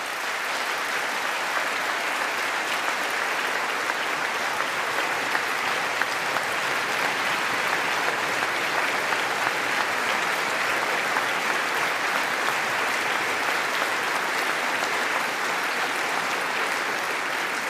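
A large crowd applauding steadily, many hands clapping at once in a long, unbroken ovation.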